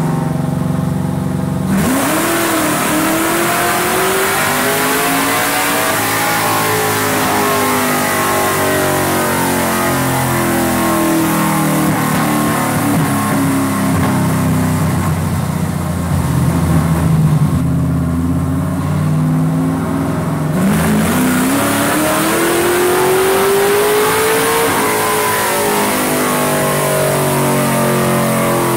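GM LQ9 V8 race engine with electronic fuel injection, running under load on a chassis dyno. It revs up sharply about two seconds in and climbs for several seconds, then winds down, and makes a second pull like it about two-thirds of the way through.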